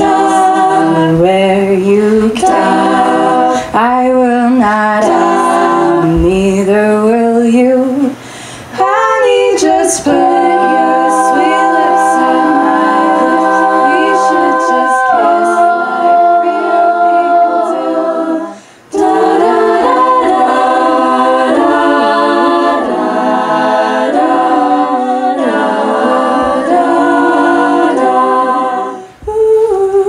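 All-female a cappella group singing through stage microphones: a solo voice over backing voices, with long chords held in the middle and short breaks between phrases.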